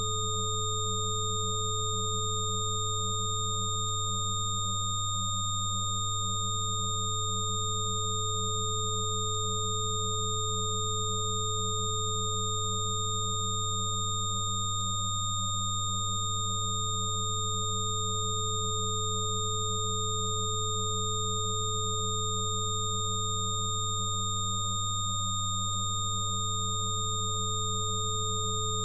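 Synthesized 'healing frequency' drone made of several steady pure sine tones layered together: a strong deep hum under higher, thinner whistling tones. One middle tone briefly dips and returns about every ten seconds.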